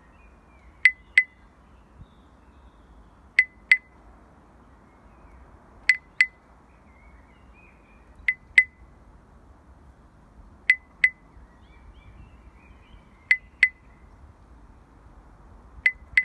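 Paired short high clicks with a brief ringing tone, a double tick about every two and a half seconds, seven times, keeping a slow heartbeat-like rhythm over a faint steady low hiss.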